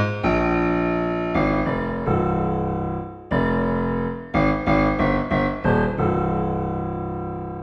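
Yamaha SHS-500 Sonogenic keytar playing a phrase of struck, decaying notes and chords in one of its keyboard voices, with reverb added. The last chord, about six seconds in, rings on and fades away.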